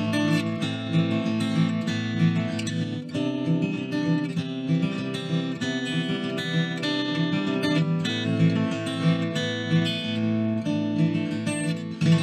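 Acoustic guitar playing, with individual notes ringing over one another in a steady rhythm and a louder chord struck just before the end, left ringing.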